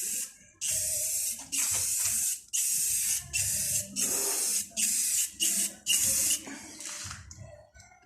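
Aerosol can of Rust-Oleum rust-inhibiting paint spraying in about eight short hissing bursts, one after another, weaker near the end.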